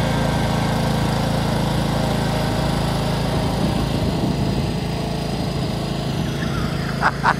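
Ride-on lawn mower's small engine running steadily, a little quieter from about halfway. Near the end a quick run of short, evenly spaced pulses begins, about four a second.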